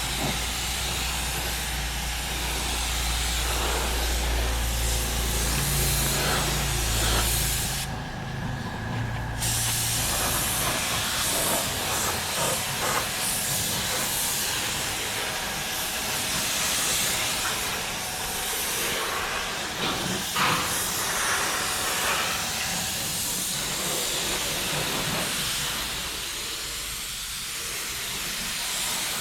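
Compressed-air spray gun hissing steadily as it sprays undercoating, with a break of about a second and a half some eight seconds in. A low steady hum sits underneath for the first ten seconds.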